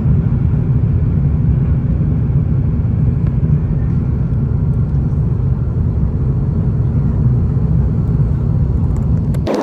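Jet airliner climbing just after takeoff, heard inside the cabin: the engines and airflow make a loud, steady low rumble. It breaks off abruptly near the end.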